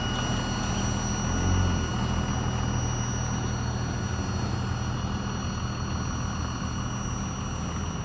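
Freight train rolling past with a steady low rumble and drone, easing off slightly toward the end.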